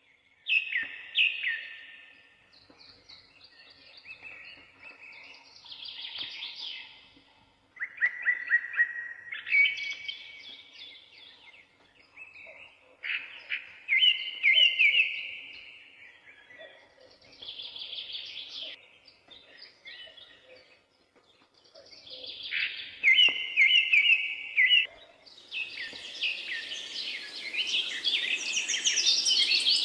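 Small songbirds singing: short phrases of rapid, repeated chirping notes and trills, one every couple of seconds. A steady hiss of background noise comes in near the end.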